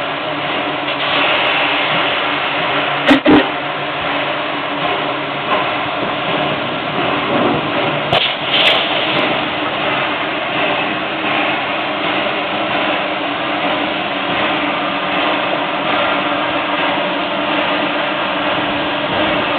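ALCO 2-8-0 Consolidation steam locomotive No. 18 moving slowly forward on its own, a steady mix of steam and running-gear noise. Two loud knocks come about three seconds in, and sharper clanks around eight seconds.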